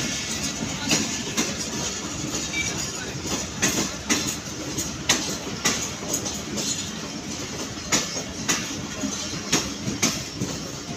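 Passenger train moving slowly alongside the platform, with a steady rumble. Its wheels click sharply over the rail joints in an uneven rhythm, roughly twice a second.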